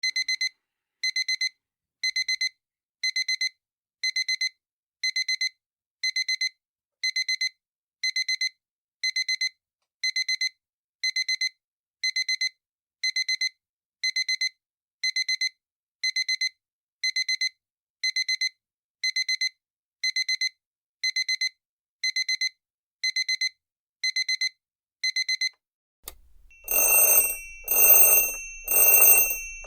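Digital alarm clock beeping: short bursts of rapid high electronic beeps, about one burst a second, signalling that the nap time is up. About 26 seconds in it changes to a louder ringing alarm tone that pulses about once a second.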